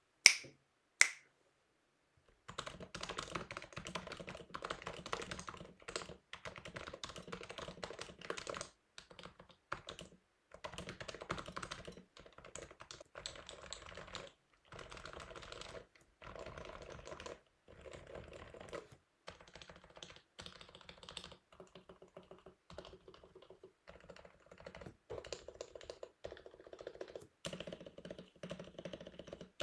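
Typing on an HHKB Pro 2 keyboard with Topre switches that are lubed and fitted with silencing rings, in bursts with short pauses. It opens with two loud sharp clicks in the first second. Two broken case standoffs may make the keystrokes sound uneven.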